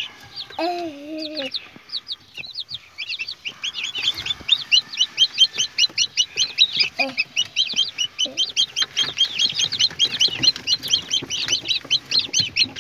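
Newly hatched chicks peeping: short, high calls repeated several times a second, growing denser and louder after the first few seconds. One longer, lower call comes about half a second in.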